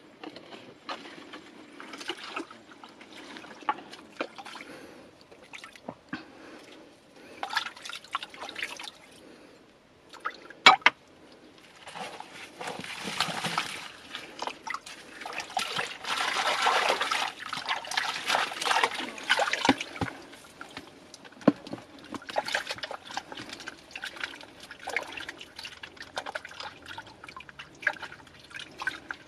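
Hands washing gathered shoots in a shallow stream: irregular water splashing and dripping, busiest in a longer stretch past the middle, with one sharp knock a little before it.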